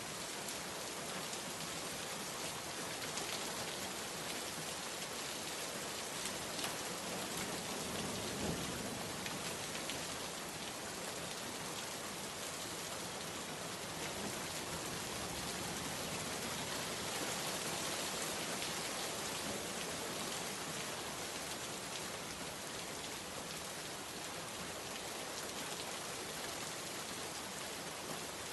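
Steady, heavy rain pattering on a surface, an even hiss with scattered drop impacts, and a brief low rumble about eight seconds in.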